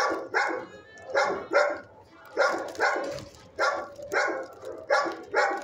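Shelter dogs in neighbouring kennels barking repeatedly, about two barks a second in short runs with brief pauses.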